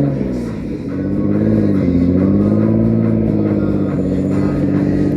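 Car engine revving: the pitch falls off a peak right at the start, then is held at a fairly steady raised speed with small rises and dips.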